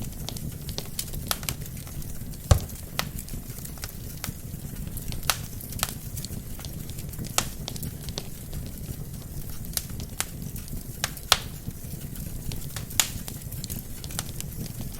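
Wood fire burning in a fireplace, with a steady low rumble of flame and irregular sharp crackles and pops from the burning logs, the loudest pop about two and a half seconds in.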